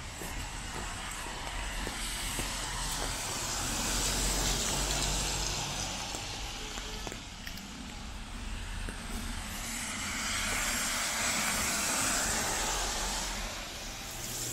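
Cars driving past on a rain-wet road, their tyres hissing on the water, over a low traffic rumble. The hiss swells up and fades twice, peaking about four seconds in and again around twelve seconds.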